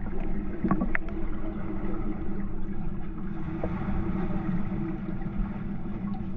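Muffled underwater sound of a swimming pool picked up by a submerged camera: a steady low rumble with a low hum running through it and a few faint clicks, dull and without any high sound.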